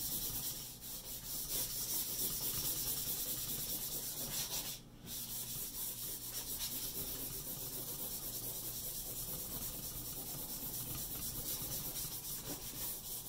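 A stick of soft vine charcoal rubbed on its side across drawing paper in rapid strokes, making a continuous dry scratching, with a brief pause about five seconds in.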